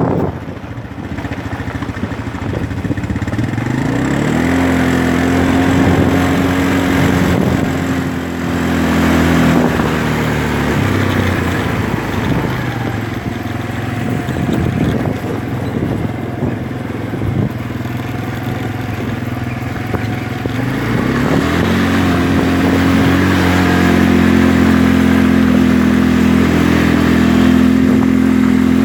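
ATV engine running while riding, speeding up about four seconds in and again about twenty-one seconds in, with its pitch easing and wavering in between.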